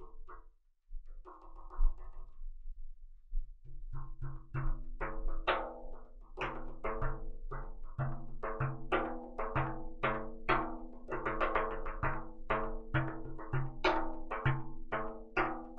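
Large hand-played frame drum struck in an even beat of about two to three strokes a second, beginning about three and a half seconds in after a near-quiet start. Each stroke rings on with a low, droning resonance.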